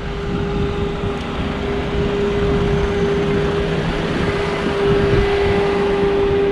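Busy street traffic: a steady wash of engine and tyre noise with a low rumble, and one unchanging hum held at a single pitch above it.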